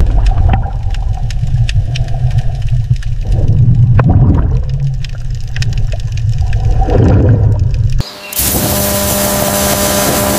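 Underwater ambience: a deep rumble with scattered clicks and bubbling swells. About eight seconds in it cuts to a steady hiss of a high-pressure water jet spraying an oyster shell clean.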